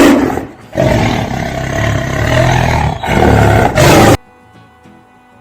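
Tiger growling: a short, loud roar, then after a brief dip a longer rough growl of about three and a half seconds that cuts off sharply.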